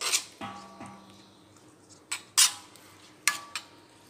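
Metal spoon stirring a thick wet paste in an iron kadai: irregular scrapes and clanks against the pan, several leaving a short metallic ring, the loudest about two and a half seconds in.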